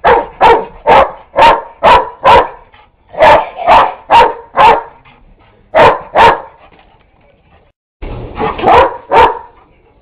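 A dog barking repeatedly in quick runs of several barks, about two a second, with short pauses between runs, at a vacuum cleaner that is switched off.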